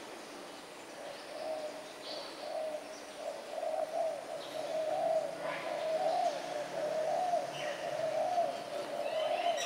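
Spotted doves cooing in a continuous run of low, wavering coos that begins about a second in, with a few short higher chirps from other small birds.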